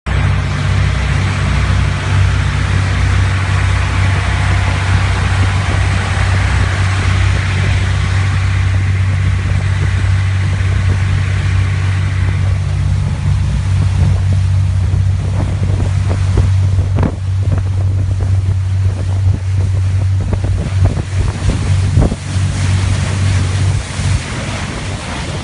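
Apreamare 16 motor yacht running under way: a steady low drone from its engines, under the rush of water along the hull and wind on the microphone. Gusty knocks come in the second half, and the engine drone fades near the end.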